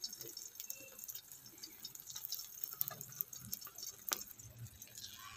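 Egg omelette batter frying in hot ghee on a tawa: a faint sizzle with scattered small crackling pops.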